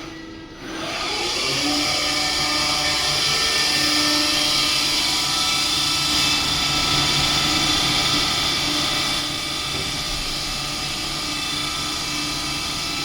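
ACE Super Jobber CNC lathe running with a steady mechanical hum and whine. The sound drops briefly just after the start, builds back up over about a second, and eases slightly about nine seconds in.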